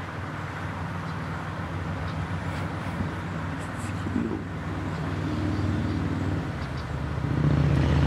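A motor vehicle's engine running with a steady low hum, growing gradually louder toward the end as if drawing closer.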